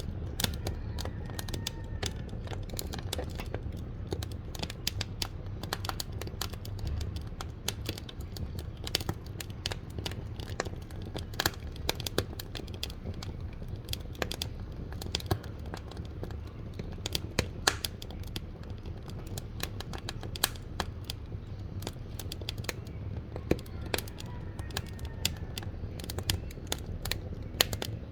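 Wood fire burning in a wood-burning cookstove's firebox, crackling and popping with irregular sharp snaps over a low, steady rumble.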